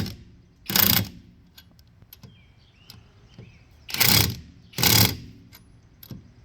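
Impact wrench, rated at 1,200 foot-pounds, hammering wheel lug nuts tight in short bursts: one ending right at the start, another just under a second in, then a pair about four and five seconds in.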